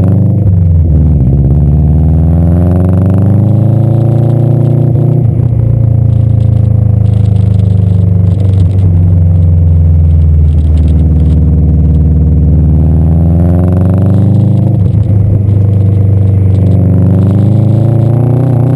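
Subaru Impreza STI GC8's turbocharged flat-four engine under hard acceleration, its pitch climbing and then dropping sharply at each gear change or lift, about five times. The car is running with an exhaust leak that the owner says costs it power.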